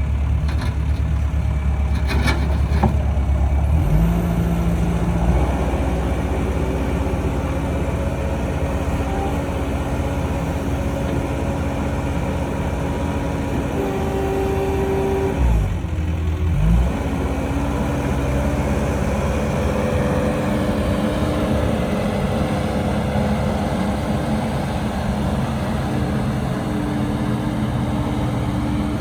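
2006 CAT 242B skid steer's diesel engine running steadily. Its engine note steps up a few seconds in, then dips briefly and picks back up about halfway through, with a couple of sharp knocks near the start.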